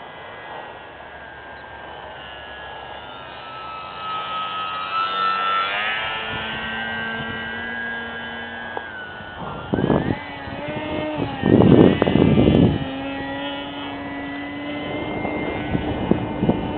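Hacker A20-26M brushless electric motor and propeller of an RC aerobatic airplane whining in flight, its pitch gliding up and down with throttle and as the plane passes. About ten and twelve seconds in, loud rushes of wind noise on the microphone cover it.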